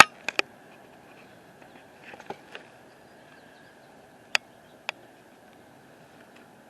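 A few sharp clicks and knocks over a faint steady background hum. The two loudest clicks come close together about four and a half seconds in.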